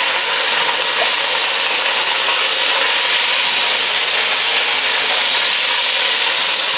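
Chicken drumsticks sizzling steadily in hot oil in a frying pan after searing.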